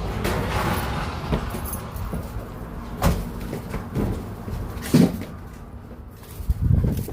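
A few sharp knocks and bumps over a steady low rumble, the loudest about five seconds in.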